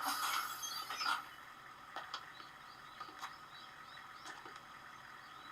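Faint bird chirps: a quick run of short, arched high chirps, with a few soft clicks in between.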